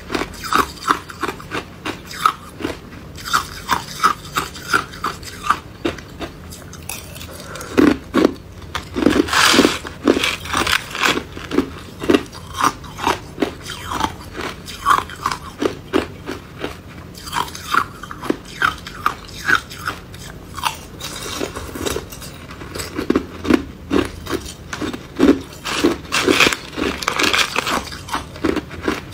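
Hard ice chunks being bitten and chewed, a quick run of sharp crunches, several a second, with louder bouts of biting about eight seconds in and again near the end.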